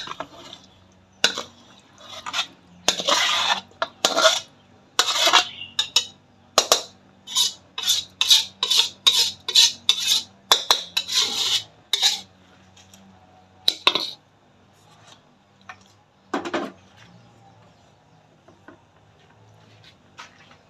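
Metal cookware clanking and scraping as spiced meat is scraped out of a pan into an aluminium cooking pot. A quick run of knocks and scrapes lasts about fourteen seconds, with one more knock a couple of seconds later.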